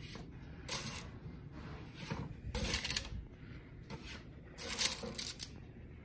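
A spatula scraping across a parchment-lined metal baking sheet as it slides under baked biscuits one at a time, three short rasps a couple of seconds apart.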